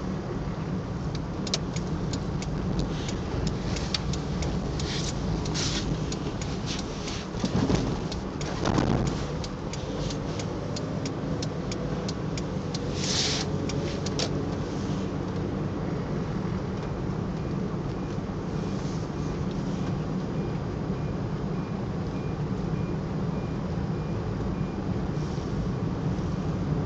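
Steady car-interior road and engine noise while driving, with irregular crinkling of a stiff PVC rain suit over the first half, and two dull thumps about eight and nine seconds in.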